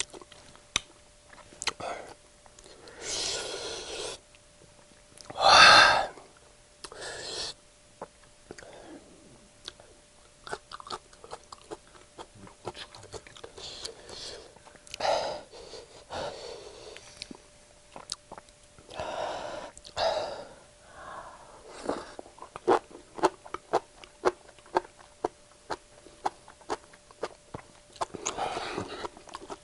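Close-miked eating of chili-sauced enoki mushrooms: wet chewing and slurping clicks, broken by several harsh, breathy gasps and wheezes from the chili heat, the loudest about six seconds in.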